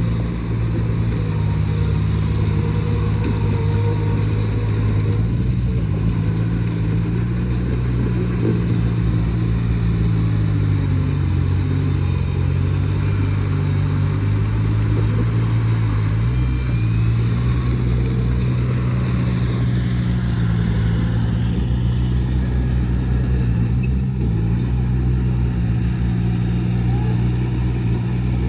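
Heavy earthmoving machine's diesel engine running steadily under work, its pitch dipping and rising a few times.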